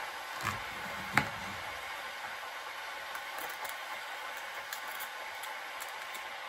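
Serrated kitchen knife cutting through an apple and knocking twice on a plastic cutting board, the second knock the louder, about a second in. Then faint small clicks as pieces are cut from the apple in hand, over a steady hiss.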